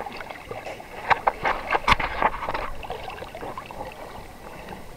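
Sea water lapping and splashing around a camera held at the surface, with a cluster of sharper splashes between about one and two and a half seconds in.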